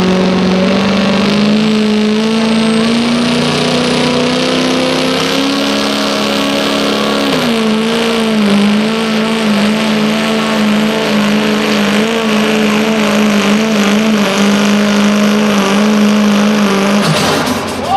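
Ford Super Duty pickup's engine held at high revs under load while it pulls a weight-transfer sled. The pitch climbs slowly at first, drops about seven seconds in, then hunts up and down before the engine note cuts off near the end.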